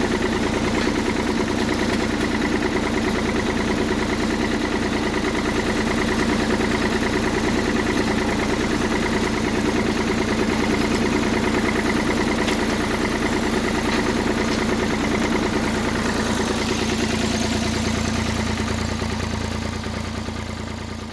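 Engine running steadily, the machine pulling the crimper roller across the field; it fades away over the last few seconds.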